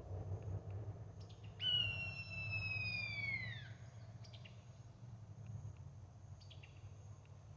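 Red-tailed hawk scream played from an electronic game call: one long, hoarse, downward-sliding cry lasting about two seconds, starting about a second and a half in.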